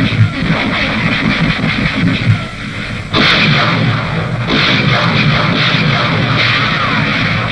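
Battle sounds of gunfire in a jungle firefight, dense rapid cracks mixed with a dramatic music score on an old newsreel soundtrack; the firing gets suddenly louder about three seconds in.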